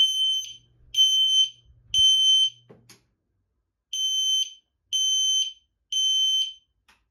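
System Sensor L-Series P2RL horn strobe sounding on its chime setting, a high steady tone in the three-pulse temporal pattern: three half-second tones, a pause, then three more.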